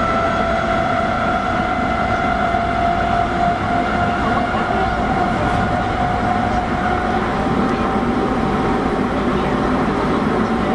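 Osaka Metro 21 series subway train running at speed, heard from on board: a steady motor whine that rises slightly in pitch and then holds, over the rumble of the wheels on the rails.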